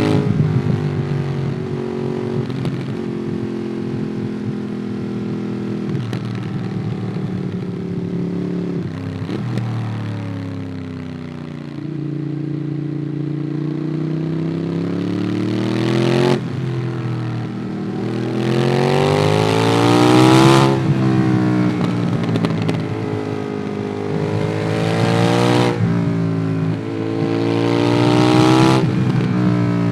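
Ducati Monster 821's V-twin engine through a QD Twin Gunshot exhaust, heard from the rider's seat: steady running, then falling in pitch under engine braking around ten seconds in. After that it pulls hard several times with a rising pitch, each pull breaking off abruptly at a gear change or when the throttle closes.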